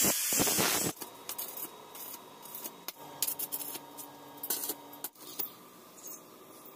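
A power drill runs for about a second and stops abruptly. Light clicks and short scraping sounds of hand work with tools follow.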